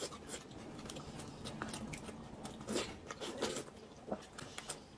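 Close-miked chewing and mouth sounds of people eating, with many soft scattered clicks.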